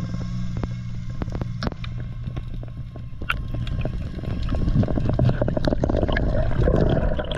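Underwater sound at a diver's camera: a low steady hum with scattered sharp clicks, then from about four and a half seconds in a louder churning of water and bubbles as the diver swims up toward the surface.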